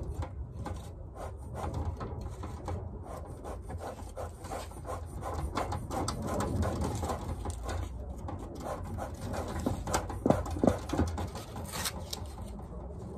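Bee smoker's bellows pumped over and over, each squeeze a short puff of air through the burning wood and paper to get the smoker hot. A couple of louder clacks come about ten seconds in.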